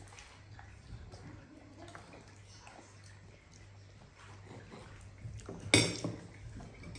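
Cutlery on plates while children eat: faint small clinks and scrapes, then one loud sharp clink of a metal fork or spoon against a plate near the end, over a low steady hum.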